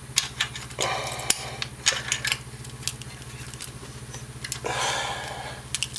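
Light metal clicks, taps and short scrapes of hand tools on a Honda Foreman 500's valve adjuster: a screwdriver and wrench on the adjuster screw and lock nut, and the feeler gauge blades clinking, as the valve clearance is set. A longer scrape about five seconds in, over a steady low hum.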